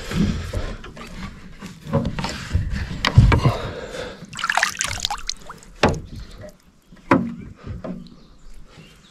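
Water splashing and lapping against a small boat, with irregular knocks and clunks of handling on the boat.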